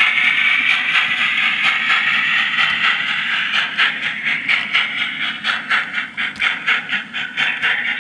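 Digital sound decoder of a model steam locomotive playing steam sound through its onboard loudspeaker: a steady hiss at first, then regular exhaust chuffs at about three a second from about three seconds in.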